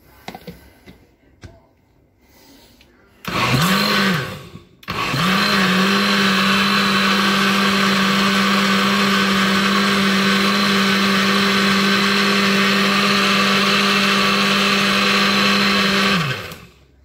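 A few light clicks, then a countertop glass-jug blender pulses for about a second and a half and is switched on again to run steadily for about eleven seconds, puréeing a thick sauce to a smooth paste. Its motor hum holds one steady pitch and drops away as it is switched off near the end.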